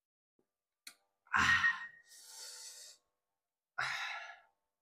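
A man's heavy breaths while eating rice porridge from a spoon: a small click, then a loud breath trailing off into a soft hiss, and a second loud breath out near the end.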